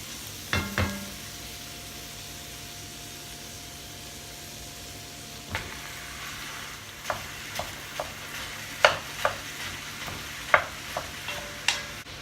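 Food frying in olive oil in a pot, with a steady sizzle. A spoon stirs it, knocking and scraping against the pot twice near the start and repeatedly in the second half.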